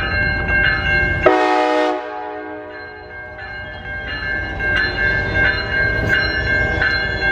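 Railroad grade-crossing warning bell ringing in a steady, regular beat throughout. Under it, the low rumble of the approaching passenger train stops abruptly about a second in. A train horn then sounds and fades over the next two seconds.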